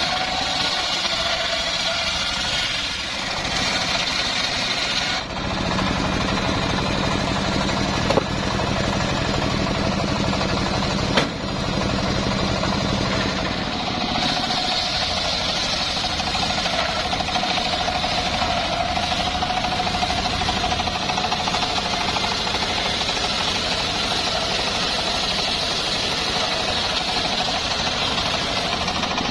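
Homemade circular sawmill running, its engine-driven circular blade ripping through sengon (albizia) timber, a loud steady mechanical din. Two short sharp knocks stand out, about 8 and 11 seconds in.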